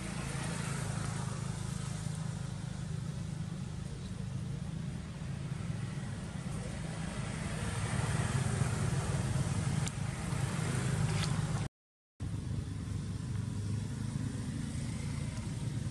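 Road traffic: motorbikes and cars passing, a steady low engine hum that swells as vehicles go by. The sound cuts out for about half a second roughly three-quarters of the way through.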